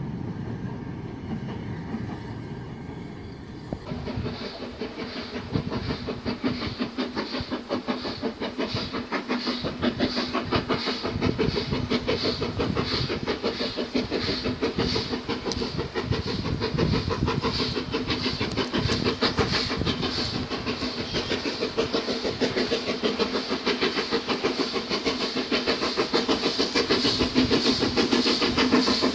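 BR Standard Class 4MT 4-6-0 steam locomotive No 75078 hauling carriages, its exhaust beats chuffing in a fast, even rhythm that grows slowly louder as it approaches. For the first few seconds, before this, there is a low rumble of departing carriages.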